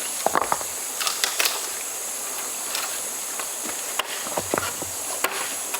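Steady high-pitched insect chorus, with a few short sharp clicks and knocks over it.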